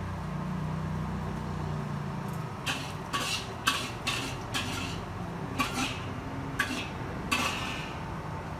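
A metal ladle clanks and scrapes against metal cookware as fried rice is scooped out and portioned, about nine sharp strikes and scrapes in irregular succession. A low steady hum underneath fades out about two seconds in.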